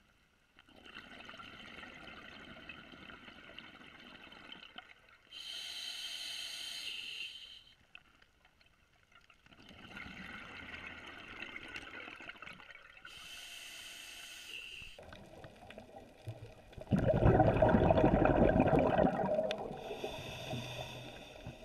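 Scuba diver breathing through a regulator underwater, several breath cycles of hissing inhalations alternating with bubbling exhalations. The loudest rush of exhaled bubbles comes about 17 seconds in and lasts two to three seconds.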